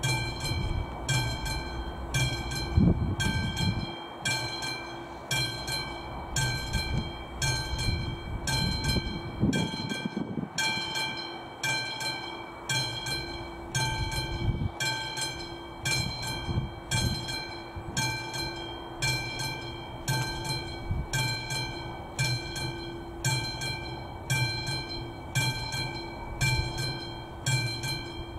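Czech AŽD 71 level-crossing warning with a classic mechanical bell, ringing in a steady, even rhythm of metallic strokes while the crossing is closed for an approaching train. A low rumble comes and goes underneath.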